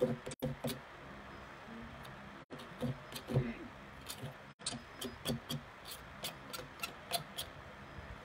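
Kitchen utensils clicking and tapping irregularly in quick clusters, with a faint voice murmuring underneath.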